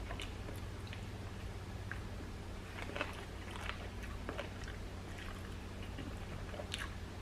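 A person chewing a bite of fried chicken sandwich close to the microphone, with small irregular crunches and wet mouth clicks over a steady low hum.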